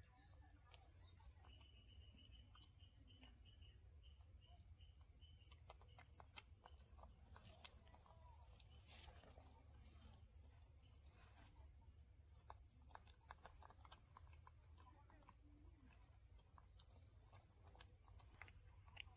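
Faint, steady high-pitched insect drone in the background, with scattered soft clicks and rustles as the baby macaques handle their food and the wicker basket.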